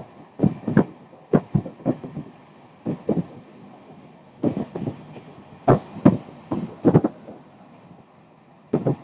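Passenger train coach running at about 125 km/h, with irregular heavy knocks and thumps from the wheels over the track, some in quick pairs, over a low steady rumble.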